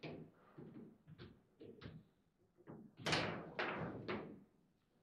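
Table football in play: the ball struck by the rod figures and rods knocking against the table. A run of light taps comes first, then a loud knock about three seconds in with two more close after it.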